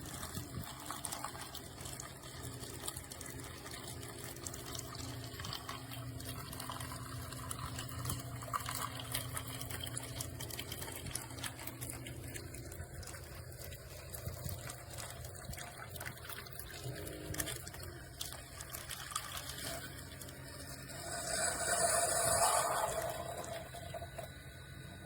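Liquid steadily running and filling a cup, which in this review is the Keurig K-Café single-serve coffee maker dispensing a brew. It swells louder for a couple of seconds near the end, then fades.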